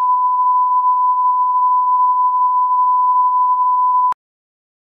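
Steady pure electronic test tone at 1 kHz, cutting off abruptly with a click about four seconds in.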